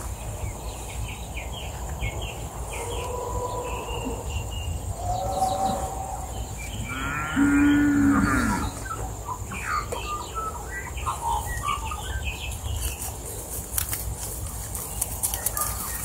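A cow moos once, loudly, for about a second about halfway through, while small birds chirp on and off.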